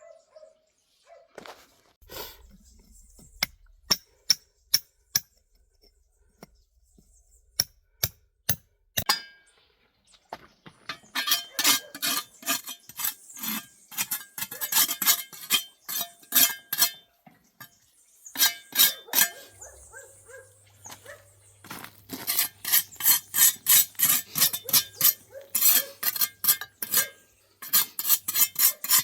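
Repeated sharp clinks and taps of hard objects striking: a few scattered strikes at first, then quick runs of several a second.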